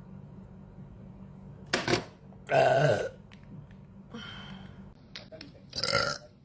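A person burping several times in short separate belches. The loudest comes about two and a half seconds in, and another strong one comes near the end.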